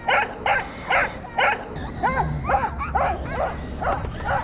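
Welsh corgi barking over and over as it chases a radio-controlled toy truck, about two barks a second at first, quickening to about three a second from about halfway.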